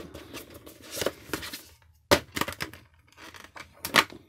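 Clear plastic packaging crackling and crinkling as a boxed model is unpacked: the cardboard box slid open and the plastic blister tray and bag handled, in a run of sharp crackles, loudest about two seconds in and near the end.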